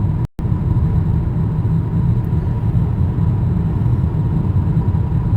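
Steady low rumble of a car driving, tyre and engine noise heard inside the cabin. The sound cuts out completely for a split second just after the start.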